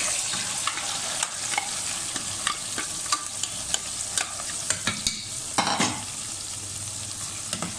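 Marinated chicken sizzling in hot oil in a cooking pot, with a spoon repeatedly scraping and knocking against the pot as it is stirred; one longer, louder scrape comes a little before six seconds in.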